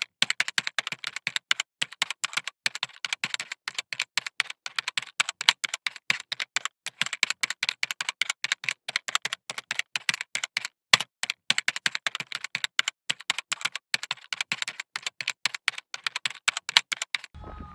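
Footsteps crunching on a gravel woodland path, sped up into a fast, dense stream of sharp clicks that starts and stops abruptly.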